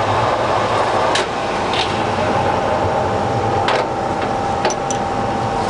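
Colchester Triumph 2000 centre lathe running steadily with its spindle in the 140 rpm gear, an even geared hum. A steady tone joins about two seconds in, and a few light clicks sound.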